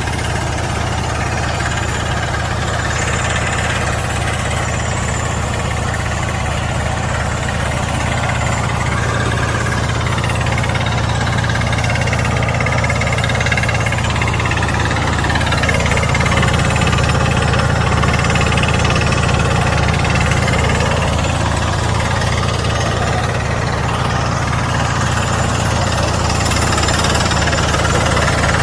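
KY120 rock drill rig drilling rock: its hammer beats rapidly and continuously over a steady low drone, without letting up.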